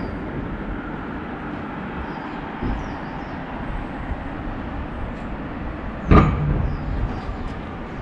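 Steady outdoor rumble and hiss, with a few faint short chirps and a single sharp knock about six seconds in.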